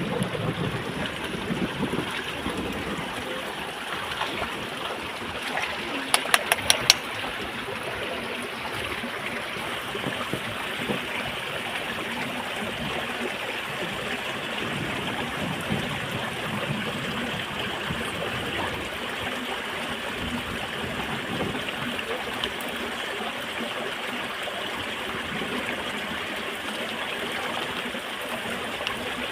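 Shallow stream running over rocks: a steady rush of water. About six seconds in, a quick run of half a dozen sharp clicks.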